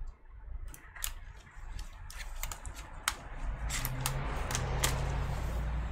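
Irregular light plastic clicks from a laptop keyboard and its connector being handled and pressed. A low steady hum comes in about halfway through.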